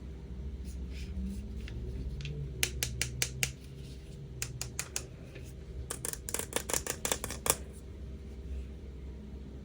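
Quick runs of sharp clicks and taps from hands handling small objects, in three clusters, the last a fast run of about a dozen clicks, over a low steady hum.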